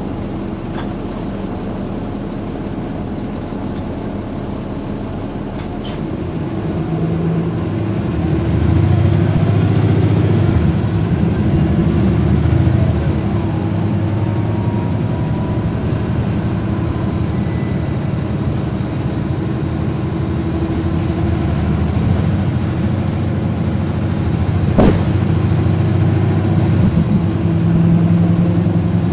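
Diesel drivetrain of a 2009 NABI 416.15 transit bus, a Caterpillar C13 ACERT engine driving through a ZF Ecomat 6HP594C automatic, running under way. The engine note grows louder about eight seconds in, eases off, and builds again near the end. A single sharp knock comes about three-quarters of the way through.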